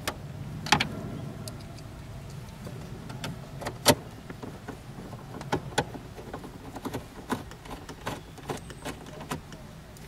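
Scattered small clicks and taps of a screwdriver and screws against plastic dashboard trim as bracket screws are fitted, the sharpest click about four seconds in.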